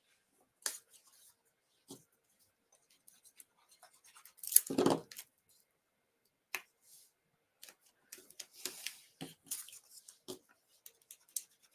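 Paper craft handling: small paper squares picked up, slid and pressed down onto a card on a wooden desk, giving scattered soft rustles and taps. One louder rustle and knock comes a little under five seconds in, and a run of rubbing and tapping comes near the end.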